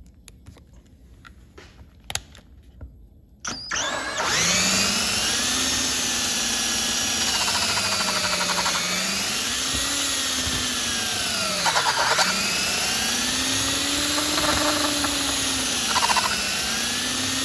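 A few faint clicks as the drill chuck is hand-tightened on the bit. About three and a half seconds in, a power drill starts and runs, its motor pitch dipping and rising under load as the bit drills out a stripped bolt hole in a chainsaw engine case, with brief chattering as it cuts.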